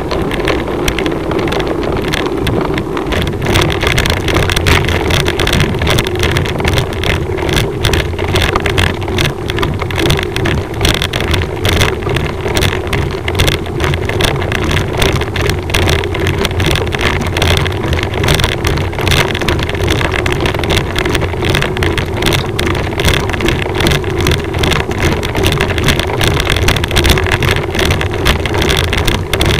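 A motor vehicle's engine drones steadily, with a rumble underneath and constant buffeting and rattle on the microphone.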